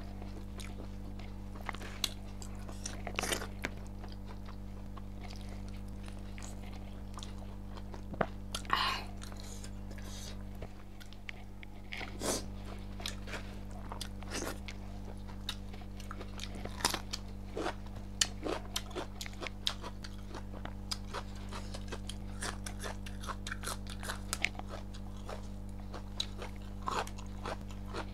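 Close-up eating sounds of a person chewing and biting a hand-eaten meal of pork curry and rice: irregular crunches, wet mouth clicks and smacks. A steady low electrical hum runs underneath.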